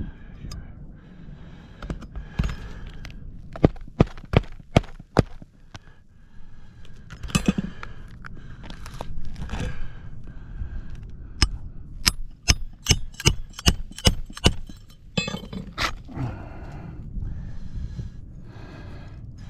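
Hammer knocking on an asphalt shingle roof in two runs of sharp strikes, about five near four seconds in and a quicker run around twelve to fifteen seconds in, with scraping between. The shingles are brittle: the hammer's vibration shakes their granules loose.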